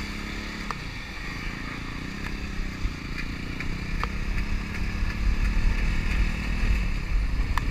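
Motorcycle engine running as the bike rides off, its pitch dropping about a second in and then holding steady. Wind rumble on the bike-mounted microphone grows louder as the ride goes on.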